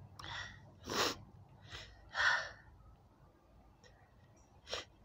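A woman's short, noisy breaths in the middle of an allergy sneezing fit: about four quick breaths in the first two and a half seconds, the loudest about a second in, and one more near the end.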